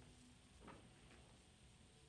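Near silence: faint room tone, with one faint click about two-thirds of a second in.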